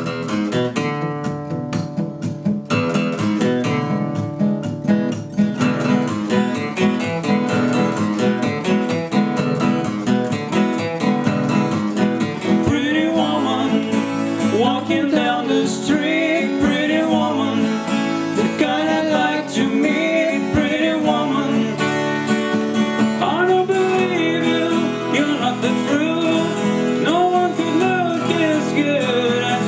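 Two acoustic guitars, one a Crafter, strummed and picked together, with a man's singing voice joining about twelve seconds in.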